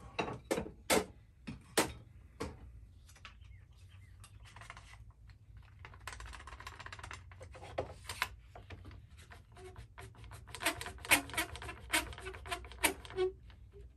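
DeWalt one-handed trigger bar clamp being pumped tight on the laser engraver's metal frame: a quick run of sharp clicks, each with a short squeak, in the last few seconds. The squeaking is a dry, unlubricated clamp mechanism. Before that come a few knocks and rattling as the clamp is picked up and fitted.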